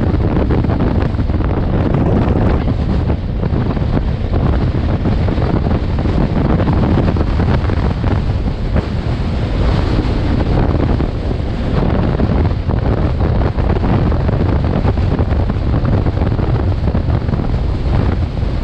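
Wind buffeting a GoPro action camera's microphone on a moving adventure motorcycle: a loud, steady rush of noise, heaviest in the low end.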